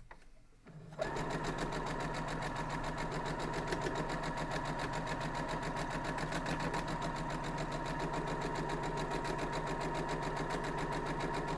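Household electric sewing machine starting up about a second in and stitching a seam at a steady speed: a fast, even run of needle strokes.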